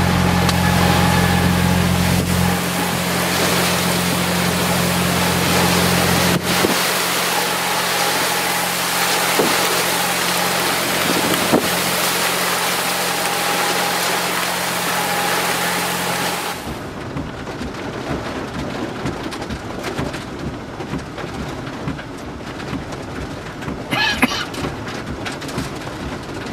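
Heavy rain pouring down in a thunderstorm, loud and steady, with a low hum underneath. About 16 seconds in it cuts off abruptly to a quieter hiss with scattered ticks.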